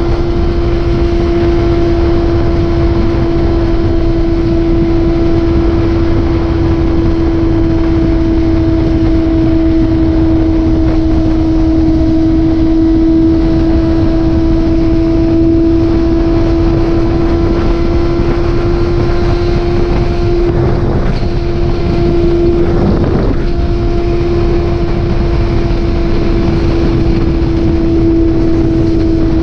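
Motorcycle engine running at a steady cruising speed, its drone holding almost the same pitch throughout, under heavy wind rush on the microphone.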